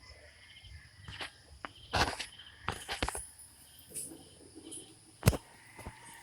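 Crickets chirping, a steady high-pitched trill, with several sharp knocks and clicks over it; the loudest knock comes about five seconds in.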